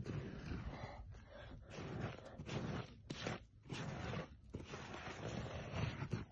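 A hand scraping and brushing loose, dry soil away in irregular scratchy swipes, with a few small clicks of grit.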